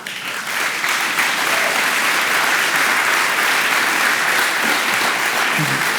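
A conference audience applauding: steady clapping that starts abruptly and carries on until it gives way to a man's voice near the end.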